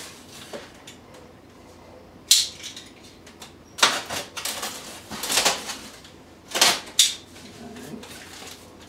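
Packing material being handled inside a foam shipping box: several short bursts of rustling and scraping as parts are lifted out.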